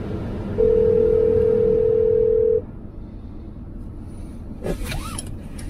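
Telephone ringback tone: one steady ring about two seconds long while an outgoing call waits to be answered.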